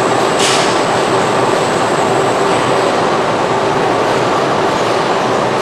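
Steady drone of car-factory machinery with a constant hum running through it, and a short hiss about half a second in.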